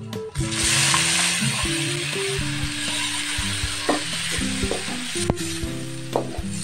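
Sliced tomatoes dropped into hot oil in a wok with onions, setting off a loud sizzle about half a second in that carries on as they fry. A metal spatula clinks and scrapes against the wok a few times as they are stirred.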